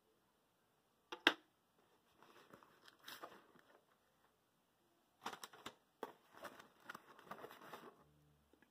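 A sharp click about a second in, then two stretches of rustling and small clicks as a nylon zippered cable bag is rummaged through and sleeved modular power-supply cables are pulled out.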